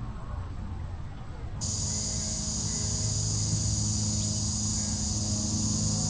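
Cicadas droning steadily and high-pitched, starting suddenly about a second and a half in over a low steady hum.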